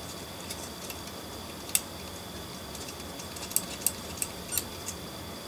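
Light clicks and taps as a small plastic-and-metal 00 gauge model locomotive is handled and its wheels are worked over with a cotton bud: one sharp click a little under two seconds in, then a quick run of clicks near the end. A faint steady high-pitched whine runs underneath.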